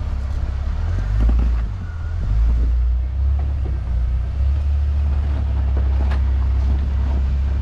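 Jeep on a rocky dirt trail: a steady low engine and drivetrain rumble that swells a little in the first few seconds, with a few sharp knocks.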